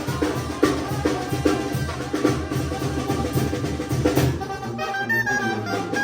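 Mexican banda music: drums beating with brass underneath, then about four seconds in the drums drop away and held brass and wind notes carry the melody.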